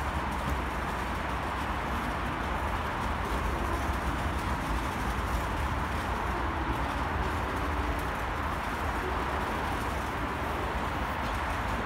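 Steady background noise of a metro station corridor: a low rumble with an even hiss, swelling slightly in the middle.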